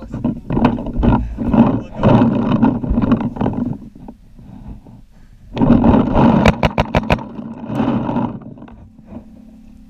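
A quick string of about seven sharp paintball marker shots, about 6.5 s in. They sit among loud, irregular rushing noise bursts close to the microphone, which start and stop, then die away near the end.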